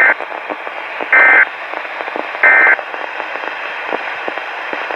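Three short bursts of SAME digital alert data tones on a Weatheradio Canada receiver, each about a third of a second long and spaced about a second apart. A steady radio hiss with scattered crackle runs under them. Bursts this short are typical of the end-of-message code that closes an alert's opening announcement.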